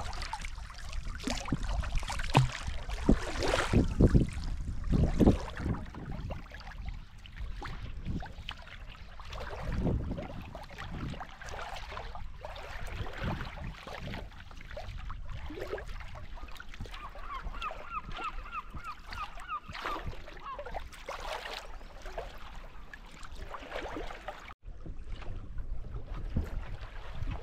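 Sea kayak paddling on calm water: paddle blades dipping and water splashing and lapping at the hull, louder and more splashy in the first few seconds. About two-thirds through, a bird calls a quick run of repeated notes for a couple of seconds.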